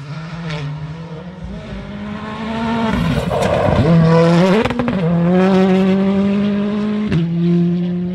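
A rally car at full speed on a gravel stage, its engine running at high revs. About three to four seconds in the note breaks and changes pitch, and it is loudest around the middle, with a few sharp cracks. After that it holds a steady high note.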